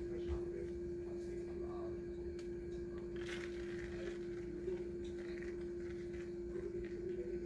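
A steady hum holding one pitch throughout, with faint rustling and light taps as a flour tortilla is pressed onto a quesadilla maker and shredded cheese is sprinkled over it.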